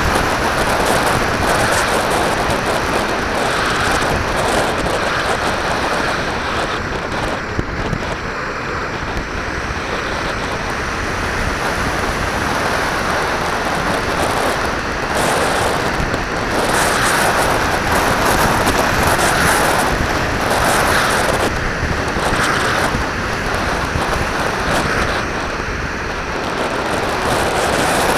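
Steady wind noise rushing over a small onboard camera's microphone on a radio-controlled glider in flight, swelling and easing a little with airspeed.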